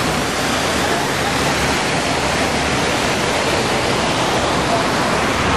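Steady splashing of a plaza fountain's rows of water jets falling onto wet paving, a loud even rush of water.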